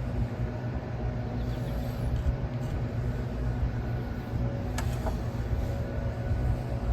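Steady low motor hum, like an engine idling, with a single sharp click about five seconds in.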